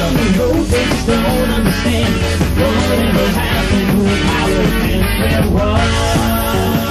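1980s new-wave rock band recording: electric guitars over bass and drums, playing steadily without a break.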